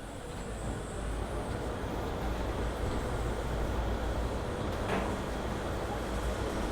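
OTIS Gen2 traction elevator running, with a steady low rumble that builds over the first second and then holds, and one short click about five seconds in. The uploader puts the loud noise of these elevators down to a bad bearing.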